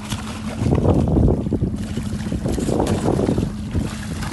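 Hooked fish thrashing and splashing at the surface beside a small inflatable boat, in two spells of splashing, over a steady low hum.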